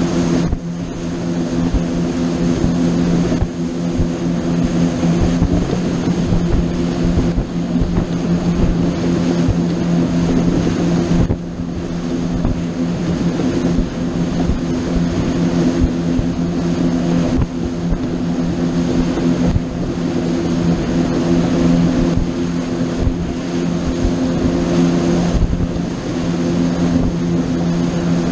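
A boat's engine running steadily under way, a constant low drone, with a rushing noise over it.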